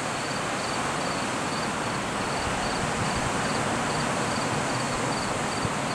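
An insect chirping in an even, high-pitched pulse about twice a second over a steady hiss of outdoor ambience.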